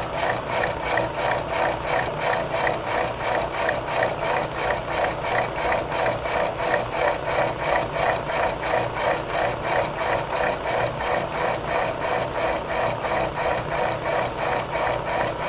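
Knee milling machine face-milling a metal block with a shell mill: a steady cutting chatter that pulses evenly about four times a second.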